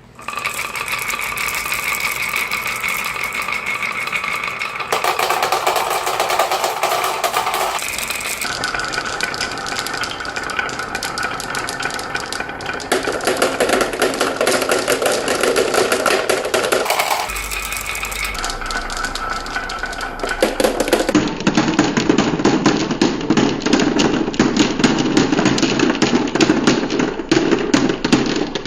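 Many marbles rolling and clattering down a marble-run track, a dense stream of rapid clicks. The tone of the rolling changes abruptly several times.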